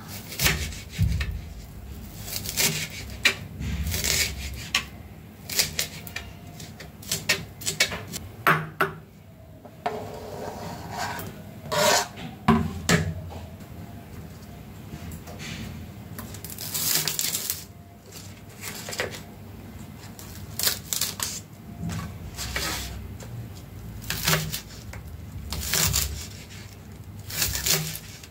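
Kitchen knife chopping on a plastic cutting board: irregular sharp taps with some scraping of the blade, first mincing garlic, then slicing scallions finely.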